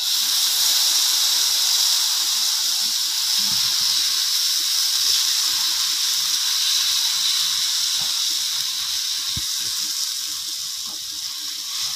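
Lauki chila batter (grated bottle gourd and gram flour) sizzling in hot oil on a tava. The sizzle starts suddenly as the batter is spooned onto the pan and spread out, and eases a little near the end, with a few faint clicks.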